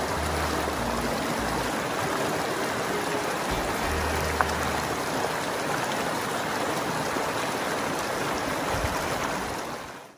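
Shallow mountain creek running over a rocky bed: a steady rush of water that fades out near the end.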